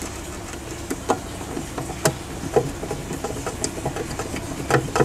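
Hand screwdriver turning a screw into a wooden box to fix a small metal bracket: scattered light clicks and scrapes, with one sharper click about two seconds in. A steady low hum runs underneath.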